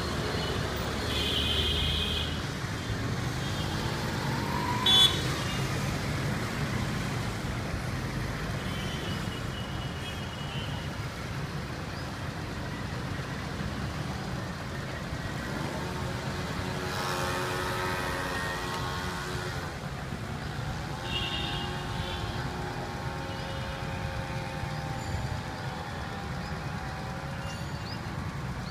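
Street traffic: cars, motorcycles and auto-rickshaws running, with short horn toots. The sharpest and loudest toot comes about five seconds in, and longer pitched tones sound in the second half.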